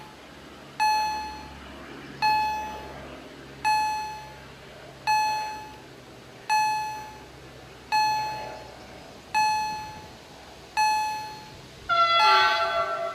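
Auer EHL-S10 electronic level-crossing bell ringing, one bright bell-like strike about every second and a half, each fading away before the next, while the crossing is closed for an approaching train. Near the end a louder tone with several pitches, falling slightly, comes in over the bell.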